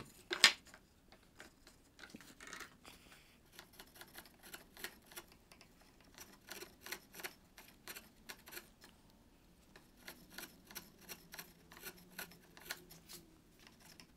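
A sharp chisel paring thin shavings from the curved edge of a wooden board, a string of short crisp slicing strokes about two a second, with a brief pause partway through. A single sharp knock about half a second in is the loudest sound.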